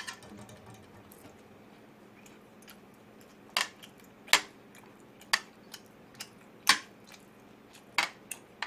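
Metal chopsticks clicking against a plastic food container, a plate and a pot while picking up pieces of beef. There are about six sharp clicks, starting some three and a half seconds in, the loudest near the end.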